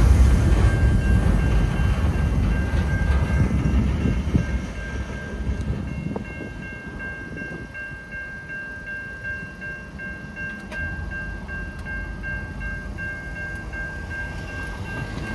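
CN freight train's last cars rolling past a level crossing, the wheel rumble loud at first and falling away after about five seconds as the train pulls off. Throughout, the crossing's warning bell rings with a steady, evenly repeating tone.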